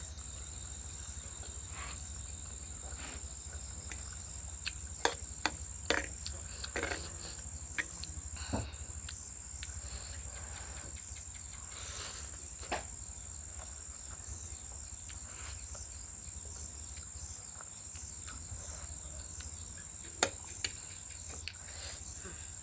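Steady, high insect trill like a cricket's, with scattered sharp clicks and taps of eating noodles, most of them in a cluster a few seconds in and a loud one near the end.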